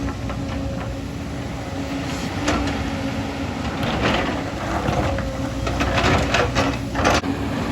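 Diesel engine of a heavy earthmoving machine, bulldozer or excavator, running steadily under load, with repeated bursts of scraping and crunching as soil and stones are moved.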